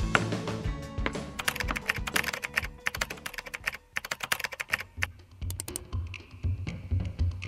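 Fast typing on a computer keyboard, a dense run of key clicks that starts a second or so in and stops near the end, over background music that ends on a steady bass beat.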